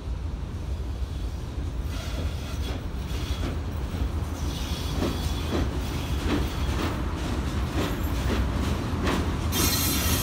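Soviet VL11M two-section freight electric locomotive and its freight train approaching and passing close. The low rumble grows louder, with repeated clacks of wheels over rail joints, and a loud high hiss sets in near the end as the locomotive comes level.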